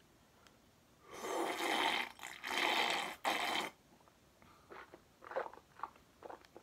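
A boy loudly slurping the leftover milk from a cereal bowl, in three long noisy pulls over about two and a half seconds, followed by a few short, quieter mouth sounds.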